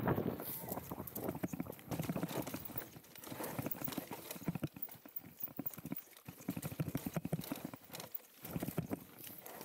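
Mountain bike rattling and clattering as it rolls down a rough, dry dirt trail, tyres rumbling over the ground: a dense, irregular run of knocks that eases briefly around six and eight seconds in.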